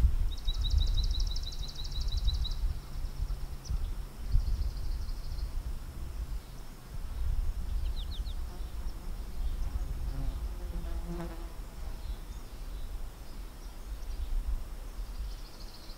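A fly or bee buzzing close to the microphone, a steady low hum that fades after about seven seconds, over a constant low rumble on the microphone. A bird gives a rapid high trill at the start and a few quick chips about eight seconds in.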